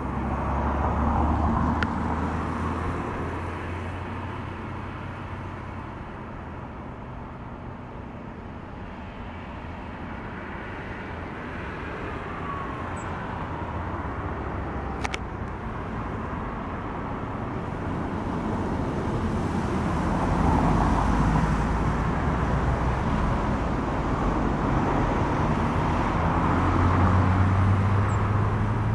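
Road traffic on the N309 passing one vehicle after another, a rumble and tyre noise that swells and fades: loud about a second in, quieter through the middle, and building again over the last ten seconds. This is the traffic noise the homes along the road are being insulated against. A single sharp click about halfway.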